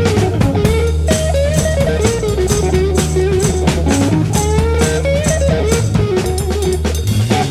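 Background music with a drum kit beat, bass and a guitar-led melody.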